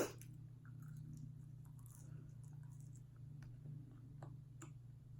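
Faint chewing and wet mouth clicks of someone eating, with a sharper click right at the start, over a steady low hum.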